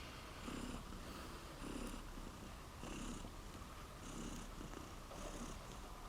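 A domestic cat purring, the sound swelling and easing in an even rhythm about once a second.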